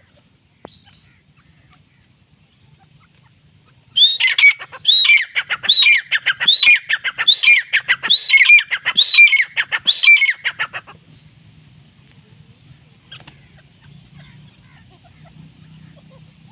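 Grey francolin calling loudly: a run of about a dozen rising-and-falling notes at a steady pace, roughly one and a half a second, starting about four seconds in and lasting about seven seconds.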